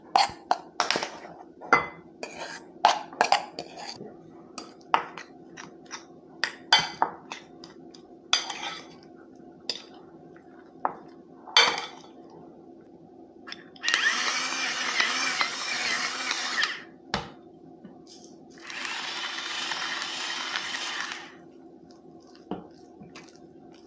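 A run of sharp clicks and knocks, then a small electric motor runs twice, for about three seconds each time, with a short pause between.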